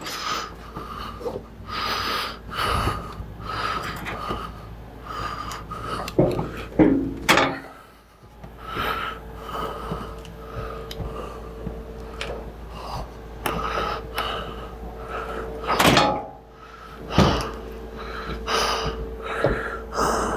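Irregular knocks, clunks and scraping as a 300-pound heat press on a wheeled steel stand is manhandled through a doorway. A steady hum runs underneath from about halfway through.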